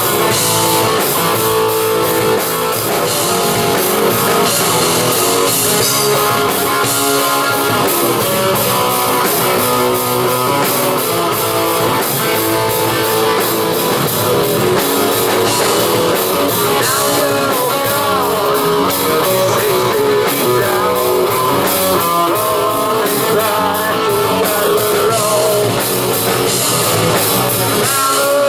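A live rock band playing, with electric guitars and drum kit; a lead guitar bends notes over the band, and some singing comes through.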